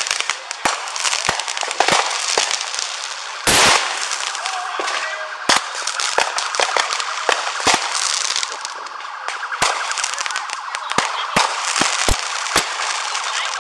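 Consumer fireworks and firecrackers going off close by: many sharp, irregular bangs over continuous crackling, the loudest about three and a half seconds in, and a fast rattling run of crackles in the second half.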